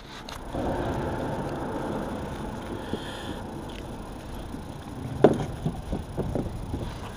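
Handling noise of a speckled trout being picked up off a plastic measuring board on a kayak: a scuffling rustle for the first few seconds, then a sharp knock about five seconds in and a few lighter taps against the hull.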